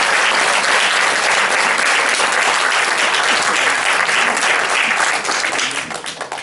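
Theatre audience applauding, a dense steady clapping that thins out into a few scattered claps and fades away near the end.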